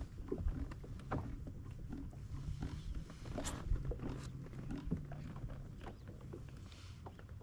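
Irregular light knocks and taps of gear and handling on a kayak, over a low steady rumble.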